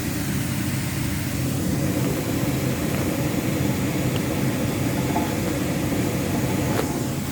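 Steady low rumbling hum of machine-like background noise, even in level throughout.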